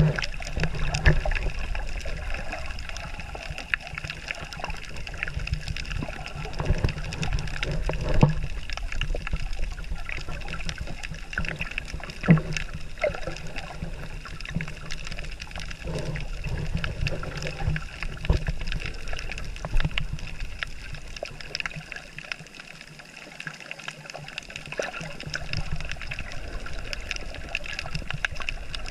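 Underwater ambience picked up through a submerged camera's housing: a steady low rumble of moving water with scattered clicks and crackles.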